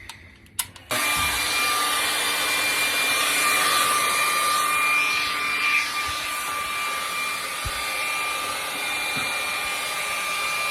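Hair dryer switched on about a second in and running steadily: a rush of blown air with a thin, even whine.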